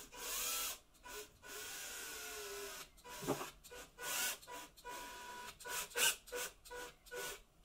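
Cordless drill-driver driving a screw into a wooden board through a pre-drilled pilot hole, the motor whining in stop-start trigger bursts: a couple of longer runs in the first half, then a string of quick short pulses.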